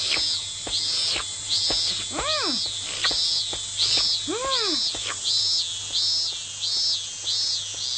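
Cicadas buzzing in shrill, evenly repeating pulses about twice a second, the background of a hot summer day. Two short pitched calls that rise and then fall come about two seconds and four and a half seconds in.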